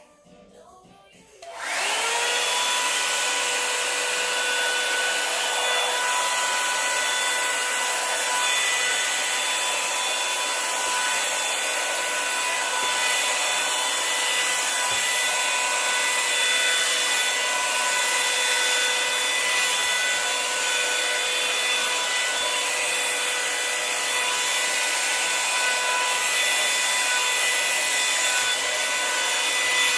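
Revlon One-Step paddle hair dryer brush switched on about a second and a half in, its motor spinning up and then running steadily on the cool setting: a loud rush of air over a steady motor whine.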